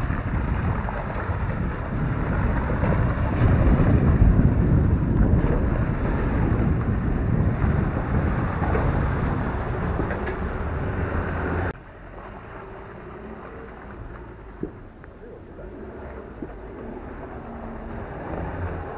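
Ford Ranger pickup's engine running under load as it drives through deep muddy ruts, its tyres churning mud and water. About twelve seconds in the sound cuts off suddenly to a much quieter, distant vehicle engine.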